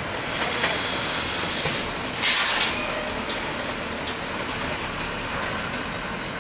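Steady vehicle noise from the railway and level crossing, with one short, loud hiss about two seconds in.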